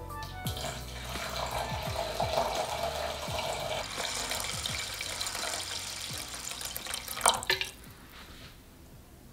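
Water poured in a steady stream from a glass bottle into a rice cooker's inner pot onto washed rice. The pour stops about seven seconds in with a short, louder splash.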